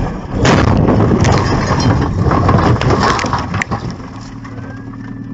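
Truck crash heard from inside the cab: a loud impact about half a second in, followed by about three seconds of crunching and scraping, then a steady low hum.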